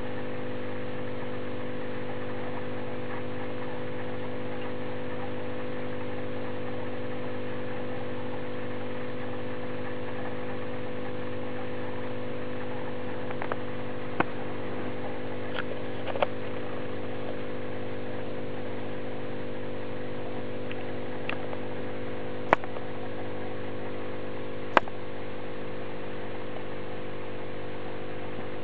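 Steady electrical hum of running aquarium equipment, even and unchanging, with a handful of short sharp clicks in the second half.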